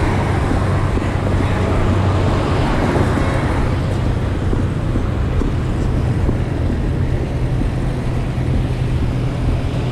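Roadside traffic noise with a steady low engine hum, a little louder for the first three seconds or so.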